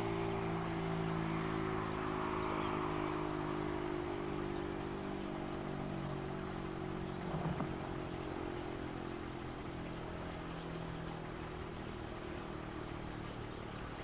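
Federal Signal Model 7B single-phase siren coasting down after its alert cycle: a low hum that slowly fades, with a short knock about seven and a half seconds in.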